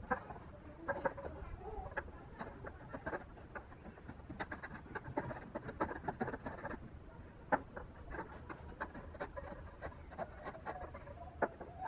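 Hand chisel paring a small block of wood, pushed by hand: a string of irregular sharp clicks and crackles as the blade shears off chips, a few of them louder.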